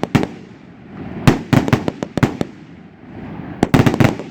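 A 100-shot salute cake firing its shells, which burst in rapid volleys of loud bangs: a couple at the start, a run of about six a little past one second in, and another run of about five near the end. A hiss swells between the volleys.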